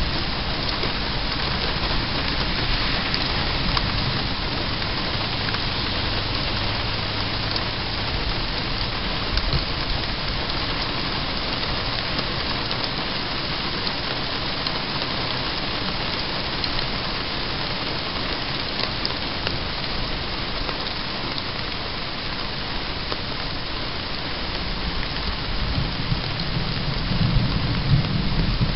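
Steady rain falling, with a low rumble of thunder swelling near the end.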